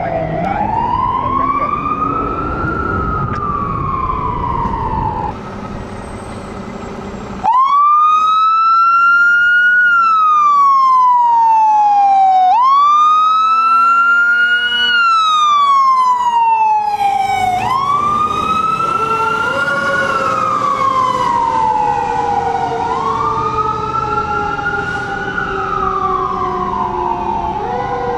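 Fire engine sirens on a slow wail, each rise and fall taking about five seconds. About five seconds in they drop away briefly, then a much louder, closer siren starts suddenly; later a second, lower siren tone runs beneath it along with traffic noise.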